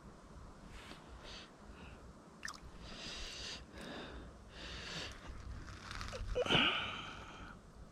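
A hand groping in shallow muddy water, making a series of short soft splashing and squelching sounds, the loudest about six and a half seconds in.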